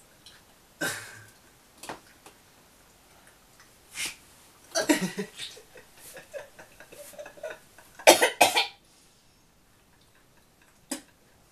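A woman coughing and gagging in repeated short fits over a mouthful of vanilla ice cream with soy sauce that she can't swallow. The loudest fit comes about eight seconds in.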